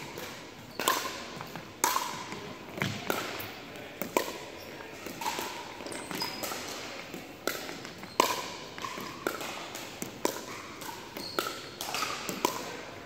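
Pickleball rally: paddles striking a plastic pickleball back and forth, about a dozen sharp pops roughly a second apart, each with a brief ring.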